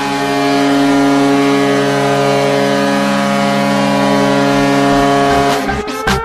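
Ice hockey arena goal horn sounding one long, loud, steady blast of several held tones. About five and a half seconds in it cuts off and an electronic goal song with a steady kick drum takes over.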